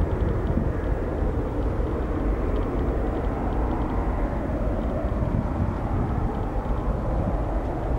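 Steady, distant jet rumble from a Boeing 777F's two GE90 turbofans at approach power on final approach.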